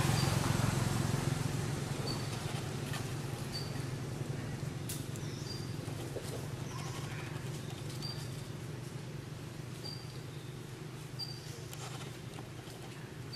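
Outdoor ambience: a low steady hum that fades over the first two seconds, with short high chirps repeating every couple of seconds and a few faint clicks.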